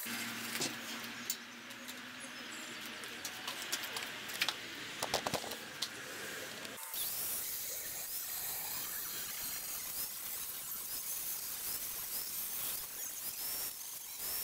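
A few short, light knocks and clinks of steel treadmill frame tubing being handled and set in place, clustered about four to five seconds in, over a low steady hiss.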